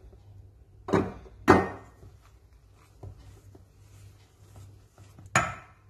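Three sharp knocks of kitchen bowls: flour is tipped from a small ceramic bowl into a stainless steel mixing bowl, the ceramic bowl is set down, and the steel bowl is steadied on the counter, with soft clicks of a gloved hand working the flour into the batter between them. A low steady hum underneath.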